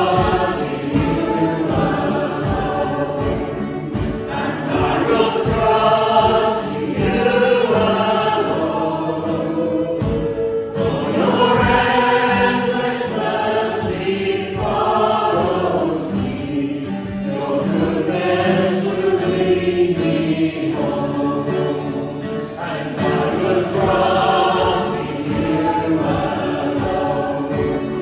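A group of voices singing a hymn or worship song together over instrumental music.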